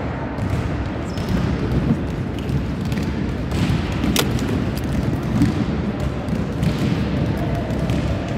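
Volleyballs being struck and bouncing on the floor of a large sports hall: scattered thuds over a steady echoing din, with one sharp smack about four seconds in.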